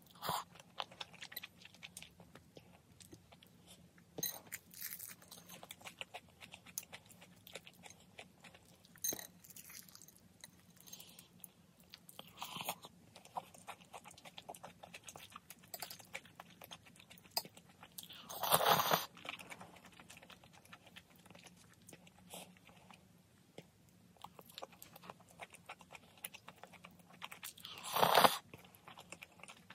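Close-up eating sounds of spicy instant noodles: wet chewing with small clicks throughout, and two loud slurps of noodles, the second near the end.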